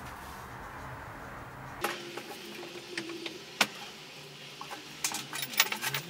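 Metal parts of a dismantled washing machine being handled: scattered clinks and knocks, with one sharp clank a little past the middle and a quick run of clatter near the end.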